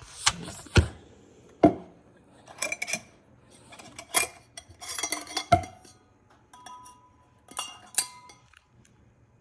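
Tea things being handled: a mug and a metal tea infuser basket knocking and clinking together in a series of separate sharp knocks, a few of them ringing briefly.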